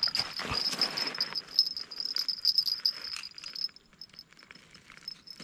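Insects, most likely crickets, chirping in a steady, pulsing high trill. For the first three and a half seconds there is also close rustling and scuffing with a few clicks, and after it stops only the insects remain.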